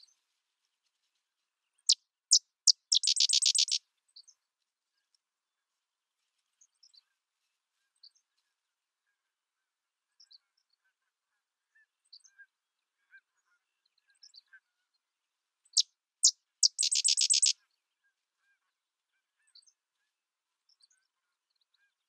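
Sedge wren singing twice, about fourteen seconds apart: each song is a few sharp, separate notes followed by a fast, dry, staccato chatter. Faint short high chips are scattered between the songs.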